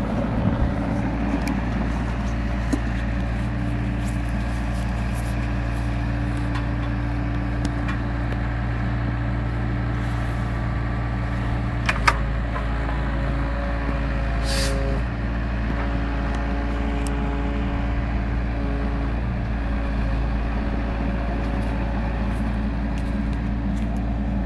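Mini excavator's diesel engine running steadily. About halfway through there is a single sharp clank, after which the engine's tone changes, and a short hiss follows a couple of seconds later.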